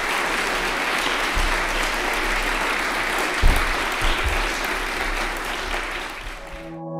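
Audience applauding steadily, with a few dull low thumps mixed in. Just before the end the applause cuts off and closing music of several held, ringing tones comes in.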